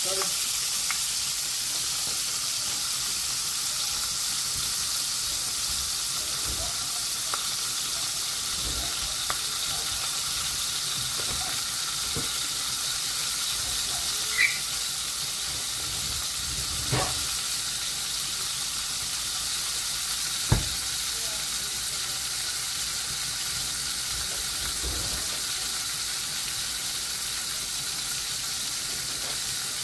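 A whole squirrel frying in hot olive oil in a cast iron skillet: a steady sizzling hiss with a few sharp pops, the loudest about two-thirds of the way through.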